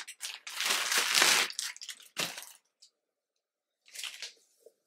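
Clear plastic garment bag crinkling and rustling as a cotton t-shirt is pulled out of it. It comes in bursts: a long one about a second in, a short one after two seconds, then a brief quiet before a last rustle near the end.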